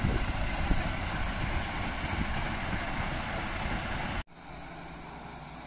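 Parked fire engines idling, a steady low rumble. About four seconds in it cuts off abruptly and a quieter, steady engine hum follows.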